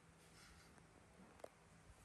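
Near silence: faint room tone with one small click about one and a half seconds in.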